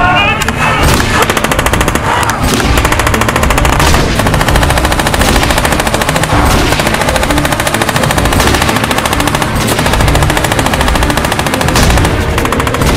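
Tripod-mounted belt-fed machine gun firing long bursts of very rapid shots, with short pauses between bursts.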